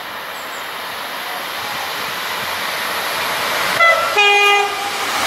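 A pair of Class 158 diesel multiple units approaching at speed, their running noise growing steadily louder. Near the end the leading unit sounds its two-tone horn: a brief high note, then a lower note lasting about half a second.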